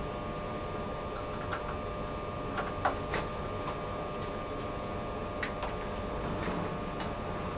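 Scattered light clicks and taps of plastic handpieces and their cables being handled on a plasma beauty machine, over a steady electrical hum.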